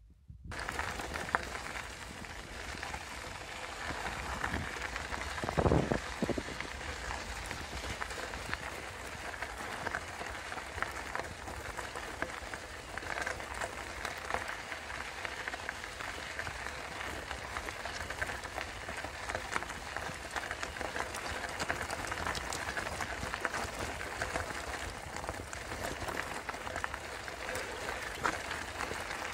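Bicycle tyres rolling over a gravel and dirt track, a steady dense crackle, with a brief louder rumble about six seconds in.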